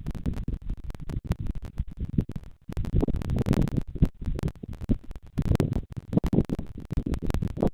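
Wind buffeting the nest camera's microphone: an uneven, gusting low rumble with dense crackling and scratching clicks throughout.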